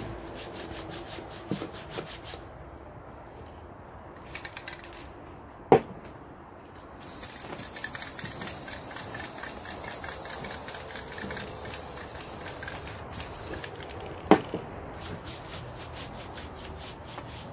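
Aerosol spray paint hissing in one long burst lasting several seconds in the middle, with gloved hands rubbing the wet paint over a carved wooden pumpkin before and after it. Two sharp knocks stand out, one shortly before the spray and one just after it stops.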